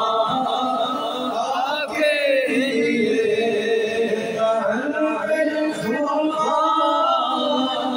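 A man's voice chanting devotional verses into a microphone over a PA system, in long held, melodic lines.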